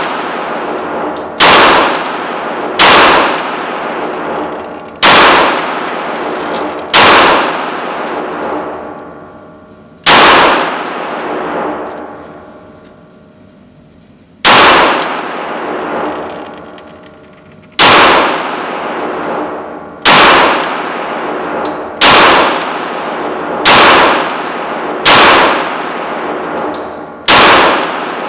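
Smith & Wesson M&P9L Pro CORE 9mm pistol firing about a dozen single shots, spaced unevenly from one to four seconds apart. Each loud shot rings on in a long echo in an indoor shooting range.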